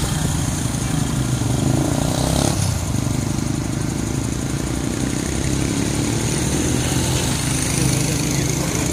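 Heavy diesel engines of a concrete mixer truck and a truck-mounted concrete pump running steadily during a concrete pour, with a motorcycle passing close by in the first few seconds.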